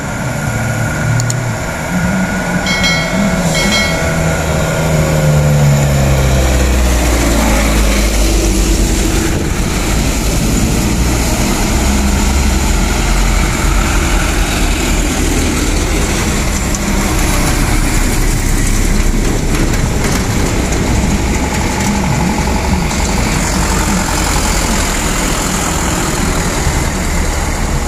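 Diesel engines of heavy trucks loaded with sugarcane running loud and close as they labour past on a steep climb. The engine note falls over the first few seconds. Two short high-pitched beeps sound about three seconds in.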